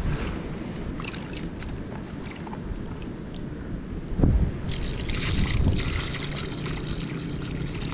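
Muddy water poured from a plastic bucket into a burrow hole in wet ground, flooding it. A dull knock comes as the bucket is tipped, and then, a little past halfway, the steady splashing gush of the pour begins.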